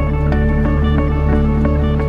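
Background music: a held low bass note under a steady run of short, ringing notes.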